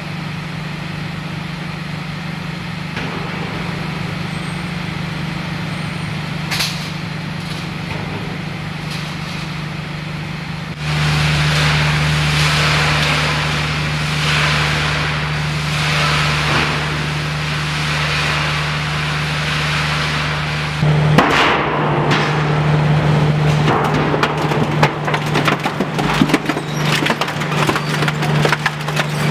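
Twin-shaft scrap metal shredder running, a steady machine hum that grows louder about a third of the way in. In the last few seconds its toothed rotors crunch through scrap metal with rapid, irregular cracks and snaps.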